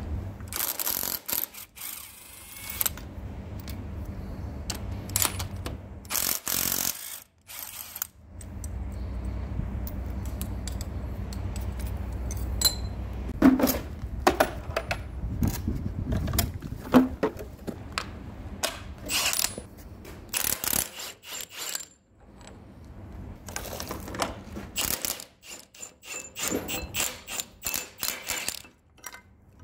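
Cordless Milwaukee impact wrench rattling in several short bursts as it undoes the bolts of a grader's centre shift cylinder mount, with clinks of sockets and loose metal parts between the bursts.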